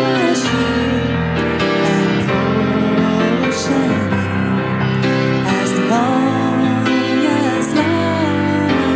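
Slow hymn music: a singer with piano accompaniment, the voice holding long, wavering notes.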